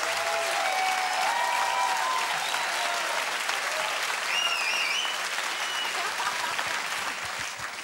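Theatre audience applauding, a standing ovation, dying down near the end.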